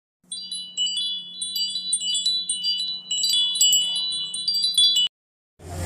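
Chimes tinkling, with many small bell-like tones struck in quick, irregular succession and ringing over one another above a faint low hum. They cut off suddenly about five seconds in.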